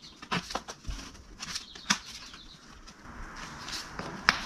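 Rod packaging being worked open by hand: a run of short crackles and clicks, then a steadier rustling from about three seconds in.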